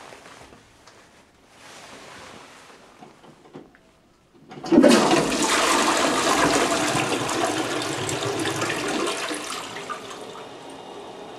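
Toilet flushing. The water rushes in suddenly about four and a half seconds in and runs loudly for about five seconds, then eases to a quieter steady running of water as the flush tails off.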